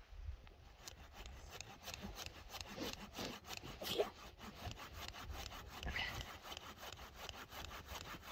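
Hand saw cutting through the trunk of a small evergreen with quick, even back-and-forth strokes, starting about a second in.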